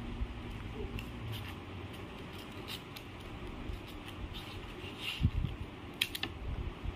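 Scissors snipping through thin paper strips: short, scattered snips, with a quick run of two or three about six seconds in. There are a couple of dull knocks just after five seconds.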